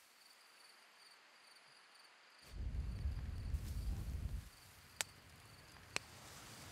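Crickets chirping in a steady, evenly pulsed rhythm, faint. About two and a half seconds in a low rumble comes in for about two seconds, and near the end there are two sharp clicks a second apart.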